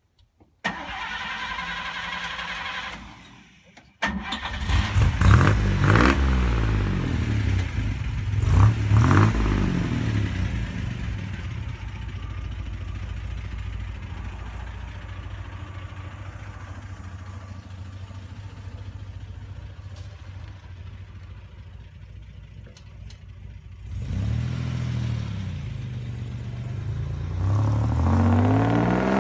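1950 Chevrolet's inline-six engine starting up about four seconds in and being revved twice. It then runs more steadily and pulls away, the engine note rising and falling and getting louder near the end.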